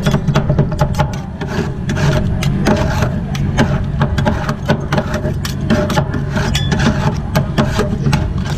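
Two metal spatulas chopping and scraping ice cream base on the frozen steel plate of a rolled-ice-cream cold plate: rapid, irregular clacks of the blades on the steel, several a second, with scraping between them, over a steady low hum.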